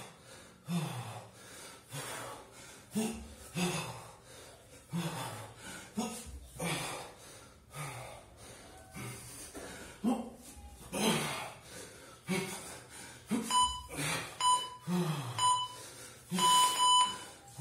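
A man breathing hard and rhythmically while working through a timed kettlebell clean set: loud, partly voiced exhales about once a second. Near the end an electronic timer beeps three short times about a second apart, then once longer.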